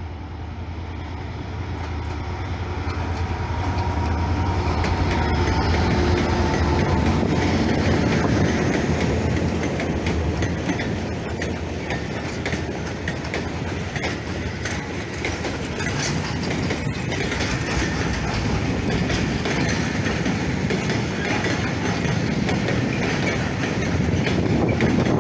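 Diesel locomotives working in multiple pass with a low engine hum, followed by a long rake of track-maintenance machines and ballast hopper wagons rolling past on the rails.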